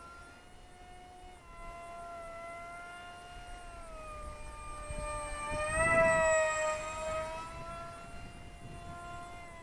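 The brushless electric motor and propeller of a Zeta Z84 flying wing (BetaFPV 2004 3000kv on 4S) whine steadily in flight, the pitch shifting slightly with throttle. The whine grows loudest about six seconds in as the wing sweeps past, its pitch rising and then falling away.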